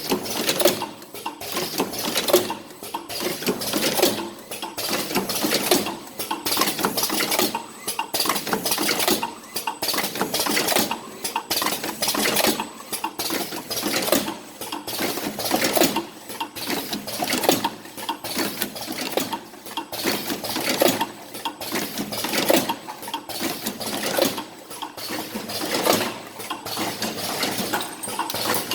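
Automatic cartoning machine running, clattering and clinking in a regular repeating cycle as it forms and fills paper boxes.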